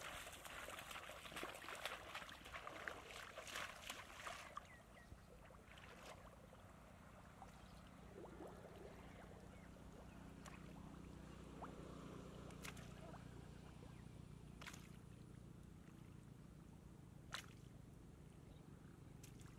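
Feet splashing and sloshing through shallow muddy water for the first four seconds or so, then faint water sounds with a few sharp clicks over a faint low hum.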